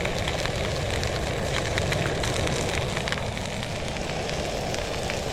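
Sardines sizzling as they grill over a fire: a steady hiss dotted with frequent small crackles and pops.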